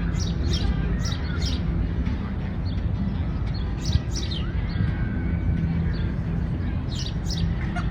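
Songbirds chirping, with quick high, falling notes repeated every second or so, over a steady low background rumble.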